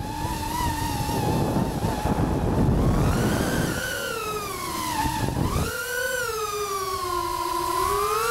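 FPV quadcopter's brushless motors and propellers whining, the pitch rising and falling with the throttle and dipping sharply about five seconds in. A rushing noise of air runs under the whine until about five and a half seconds in, then drops away.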